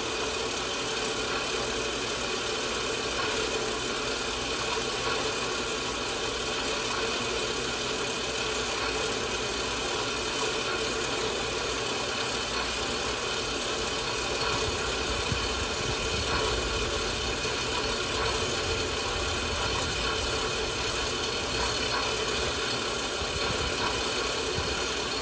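WEN 4x6 horizontal metal-cutting bandsaw running steadily through a cut in a metal workpiece, its blade wetted by flood coolant.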